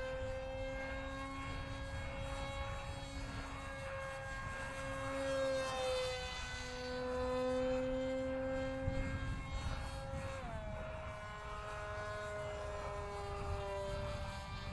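Electric motor and propeller of a cardboard RC model jet running with a steady hum, the pitch wandering as the throttle changes and shifting about ten seconds in.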